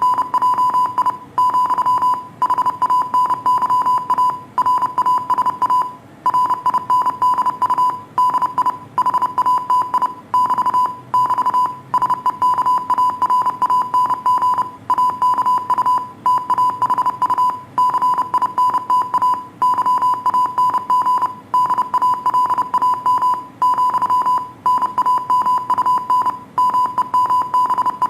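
Morse code sent as a single clean high-pitched beep, keyed on and off in fast dots and dashes with short pauses between groups: code practice audio for copying by ear.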